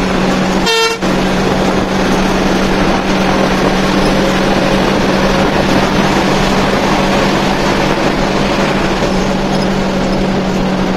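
Inside a coach at highway speed: a steady drone of engine and road noise with a constant low hum, and one short horn toot about a second in.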